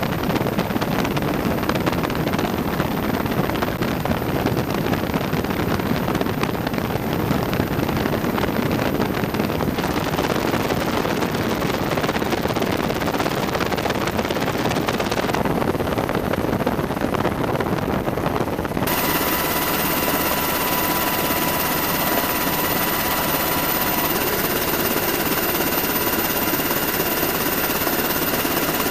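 AH-64 Apache attack helicopter in flight: steady rotor and twin-turboshaft engine noise. The sound changes abruptly a few times, and from about two-thirds of the way through a steady turbine whine sits over it.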